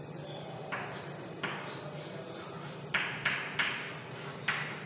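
Chalk striking and scraping on a blackboard as a word is written: about six short, sharp strokes, the loudest three coming quickly one after another about three seconds in.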